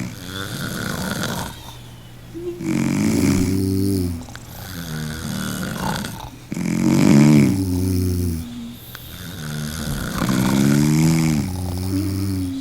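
A person snoring in a steady rhythm: three full snores about four seconds apart, each a low rattle with a wavering pitched tone over it, and quieter breaths between.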